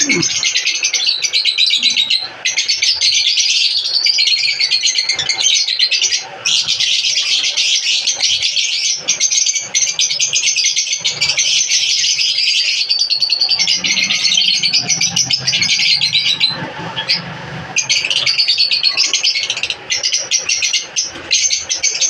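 Many lovebirds chattering together: a continuous, high-pitched chorus of rapid chirps.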